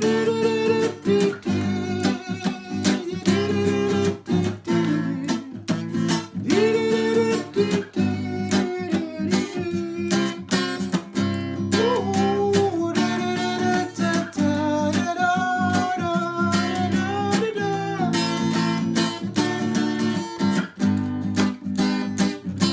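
Guitar strummed steadily through the song's closing bars, with a voice singing without words over it. It ends on a last strum left ringing.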